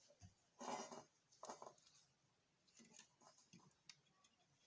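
Faint, scattered clicks and scrapes of hand tools on a TV remote's circuit board as its infrared receiver is removed.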